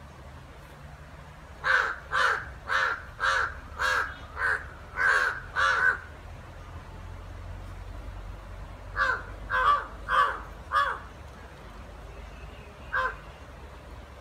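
Crow cawing during a fight between two crows: a quick run of about eight caws, roughly two a second, then four more after a pause, and one last caw near the end.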